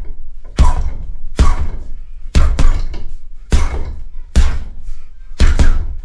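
Boxing gloves punching a hanging heavy bag: about seven hits, roughly one a second, with a quick double near the middle.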